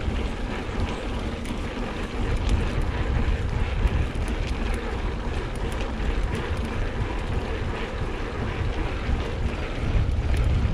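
Mountain bike tyres rolling over a dirt singletrack with wind buffeting the microphone, plus scattered light clicks and rattles. It grows louder near the end.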